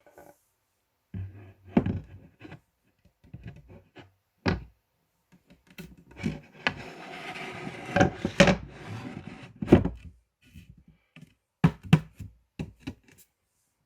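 Objects being handled and set down: a series of knocks and thunks on wood, with a stretch of rustling in the middle.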